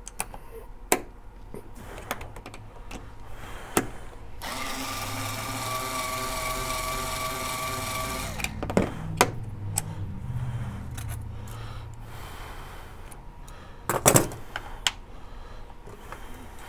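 Clicks as a brass case is locked into a case trimmer. About four seconds in, a handheld electric driver spins the trimmer's three-way cutter head with a steady whine for about four seconds, trimming, deburring and chamfering the case neck in one pass. A lower rumble with clicks follows, then a couple of sharp knocks near the end.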